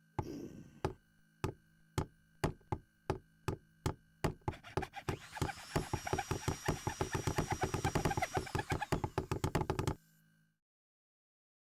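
A series of sharp knocks, slow and evenly spaced at first, speeding up into a rapid run with a high steady tone joining in the middle, then stopping abruptly near the end.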